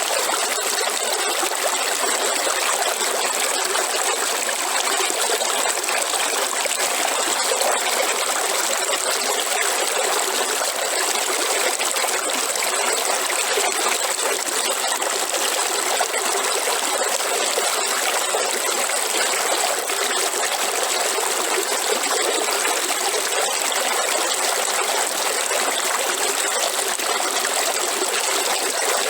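River water flowing: a steady, even rush of running water with no change in strength, and a thin steady high hiss above it.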